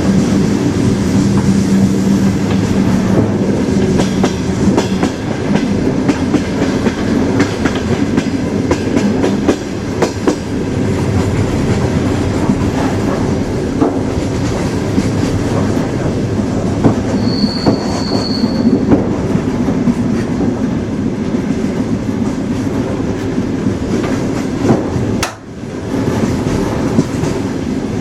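Train running on the rails: a steady rumble with irregular clicks and knocks of the wheels over rail joints, and a low hum in the first few seconds. A short high-pitched wheel squeal comes about two-thirds of the way through, and the sound drops out briefly near the end.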